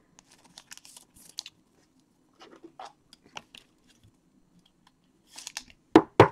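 Trading card packs and cards being handled: scattered crinkling and tearing of wrappers and small clicks, then two sharp knocks close together near the end.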